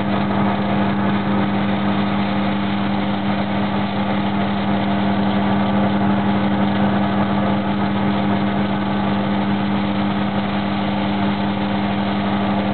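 Lapidary grinding machine running with a steady hum while a boulder opal is held against one of its spinning wheels to be ground and polished.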